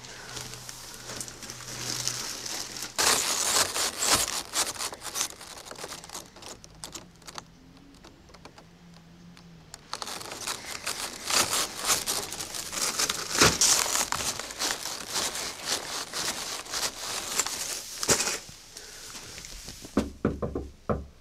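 Plastic crinkling and rustling from grocery bags and a shrink-wrapped case of bottled water being handled and set down. It comes in two stretches, a short one a few seconds in and a longer one from about halfway, with a quieter gap between.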